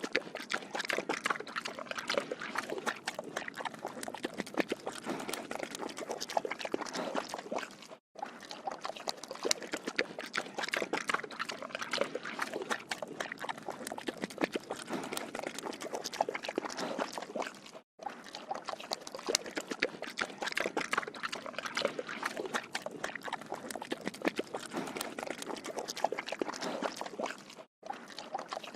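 A pig drinking water, with rapid, continuous wet slurping and sucking, broken by three brief silent gaps about ten seconds apart.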